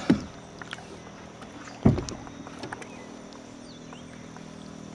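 Water splashing beside a boat as a peacock bass is held in the lake for release: two sharp splashes about two seconds apart, with faint lapping in between.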